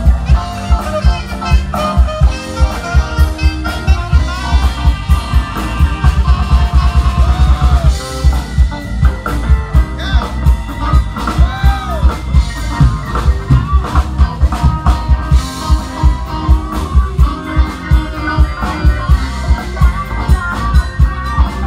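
Live band playing with electric guitars, bass, keyboard, saxophone and drum kit over a steady beat.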